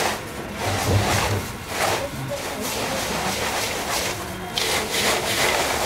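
Hands tossing and rubbing a dry kachcha chiwda mix of puffed rice, beaten rice flakes, roasted chana and peanuts in a steel bowl: repeated rustling, scratchy swishes, one with each stroke.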